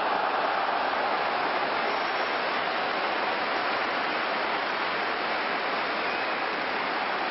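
Large stadium crowd cheering a goal: loud and steady throughout, one dense wash of cheering with no single voices standing out.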